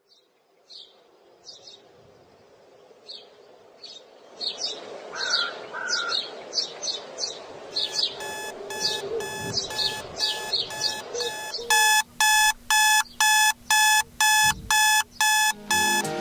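Birds chirping, then a digital alarm clock beeping in even pulses that start faintly about eight seconds in and turn much louder about twelve seconds in, around two beeps a second.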